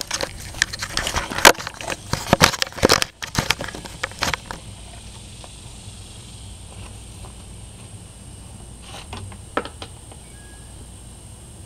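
Handling noise from a camera being carried and set down: a rapid jumble of knocks, bumps and rustles for about four seconds, then a quiet outdoor background with a faint steady high tone and a few light clicks near the end. The model engine is not running.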